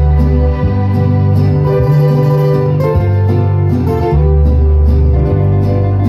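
Instrumental waltz music, loud and steady, with long held bass notes that change every second or so and no singing.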